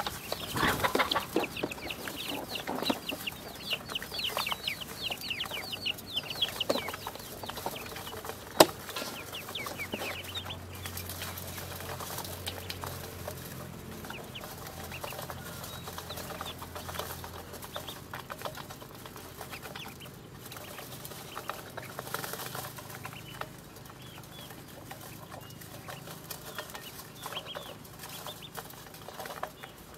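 A brood of ducklings peeping together, many short high cheeps overlapping, busiest in the first ten seconds and sparser after. A single sharp click about nine seconds in.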